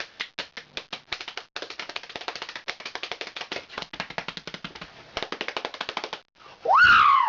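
A rapid run of sharp taps or clicks, several a second, for about six seconds. Then, after a brief pause, a loud cry from a single voice that rises in pitch and falls away.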